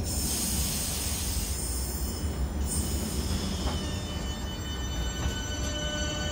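A Southeastern electric multiple-unit train starting to pull away from the platform. A loud hiss of air starts suddenly and stops after about two and a half seconds. Then the electric traction whine sets in as several steady tones over a low rumble.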